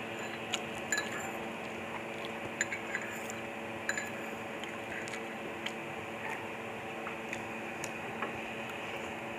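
Metal fork and spoon clinking and scraping against a bowl of lomi noodle soup, a dozen or so scattered light clinks, some with a short ring, over a steady background hum.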